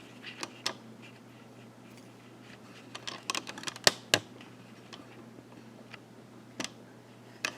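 Light clicks and taps of small hard objects being handled on a work surface: a few early ticks, a quick cluster about three to four seconds in with two sharper clicks, then a couple more near the end.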